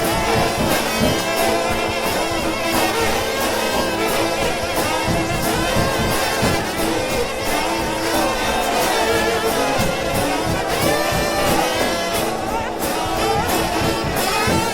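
Trombone shout band playing a 4/4 shout: sustained brass chords and lead lines over steady drum beats.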